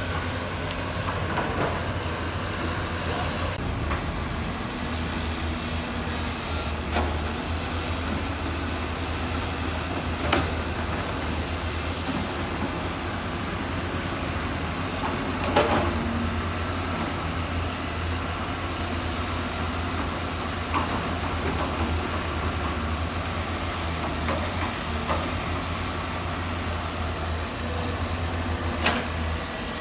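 Heavy construction machinery's diesel engine running steadily, with a few sharp knocks, the loudest about halfway through.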